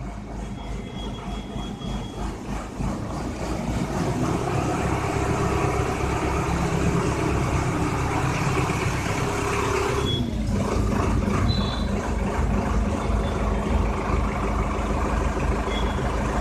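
Tractor engine running steadily as the tractor moves a load of concrete hollow blocks in its rear block clamp. The engine gets louder about three to four seconds in, and its note drops about ten seconds in.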